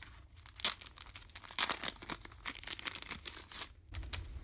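Clear plastic wrapper being torn open and crinkled off a small card calendar, in irregular rustles, the loudest bursts coming just under a second in and again at about a second and a half.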